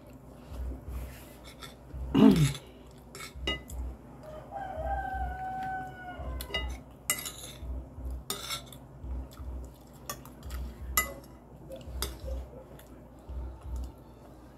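Spoons and forks clicking and scraping against glass and plastic plates as two people eat, with a loud short sound falling in pitch about two seconds in. Around the middle, a rooster crows once, a held call of about two seconds.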